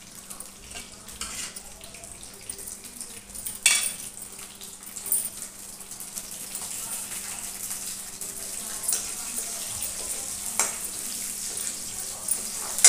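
Cubed onion sizzling in hot oil in a wok, the sizzle slowly growing louder, with a few sharp metallic clinks of a spatula and utensils against the pan.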